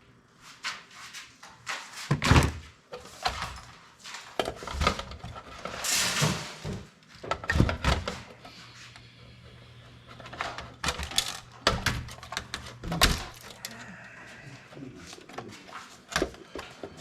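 Irregular knocks, clicks and clatter of computer parts being pulled apart and handled, with a brief scraping noise about six seconds in. A faint low hum runs through the middle.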